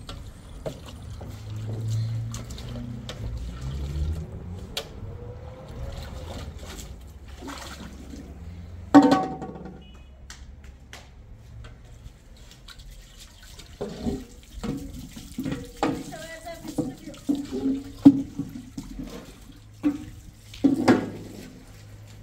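Water from a garden hose running into a metal cooking pot as it is washed, with knocks and clanks of the metal pot and lid.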